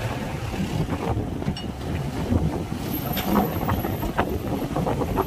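Wind buffeting the microphone over a low engine rumble from a truck and the ferry, with several sharp knocks and clatters in the second half.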